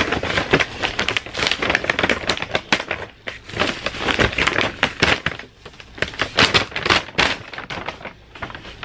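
Brown paper takeout bag being opened and rustled by hand: dense, irregular crinkling and crackling of paper.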